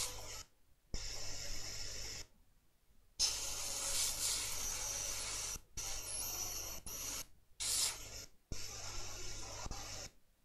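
Hot air rework station blowing in repeated bursts of one to two seconds, a hiss over a low fan hum that switches on and off abruptly, while the chip's pins are being worked on.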